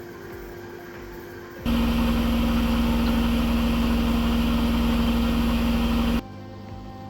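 Samsung front-load washing machine running with a steady hum and low rumble, which starts abruptly about a second and a half in and cuts off suddenly about four and a half seconds later.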